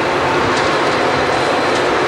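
Lit passenger train cars rolling past: a steady rushing rumble of steel wheels on rail, with a couple of faint clicks.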